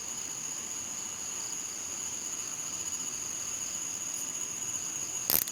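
Steady chorus of night insects such as crickets, a continuous high-pitched trill. A brief sharp noise cuts in near the end.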